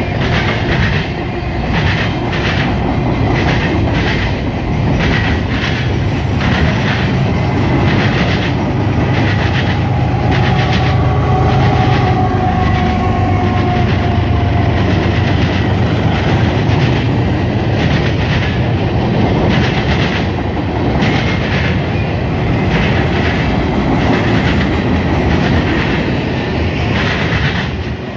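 Freight cars of a CSX mixed freight train rolling past: steady rumble of steel wheels on rail with runs of rhythmic clickety-clack as the trucks cross rail joints.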